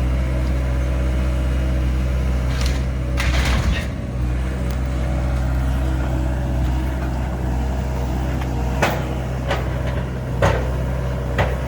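Excavator's engine running steadily and loudly, with sharp cracks and crunches of the mobile home's structure breaking up under the machine several times, the sharpest near the end.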